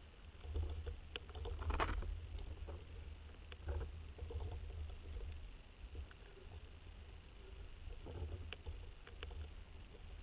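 Underwater sound picked up by the camera: a steady low water rumble with scattered clicks and knocks, the loudest a brief crackle about two seconds in.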